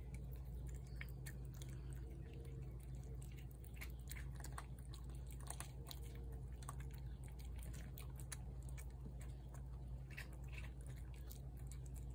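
A cat chewing wet canned food off a plate, a run of soft, irregular wet clicks and smacks.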